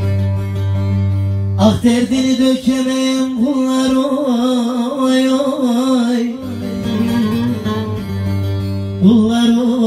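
Bağlama (saz) playing a folk tune over a steady low drone, with a man singing long, wavering held notes over it from about two seconds in until about six seconds, and again near the end.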